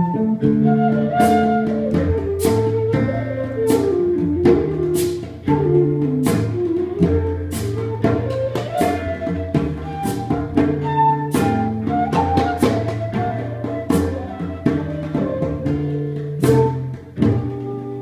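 Live acoustic ensemble music: a wooden transverse flute plays the melody over cello, strummed acoustic guitar and goblet drums struck with sticks. The drum strokes keep a steady pulse about every second and a quarter.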